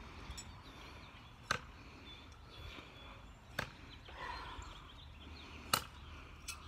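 Thrown knives striking a tree trunk: three sharp thuds about two seconds apart, with a fainter knock near the end.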